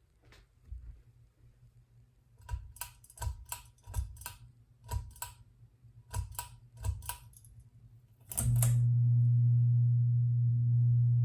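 A run of about a dozen sharp clicks, then about eight seconds in a loud, steady, low hum starts and holds: the motor hum of a 42-inch Westinghouse Richboro SE ceiling fan, which the owner calls very loud and irritating.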